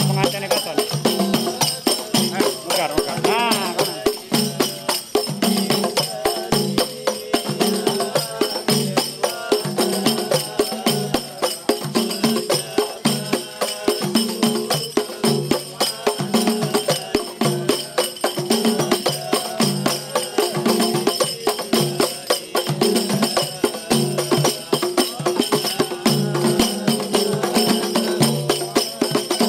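Several hand-beaten rebana frame drums played together in a fast, steady, interlocking rhythm, deep drum tones under a bright jingling.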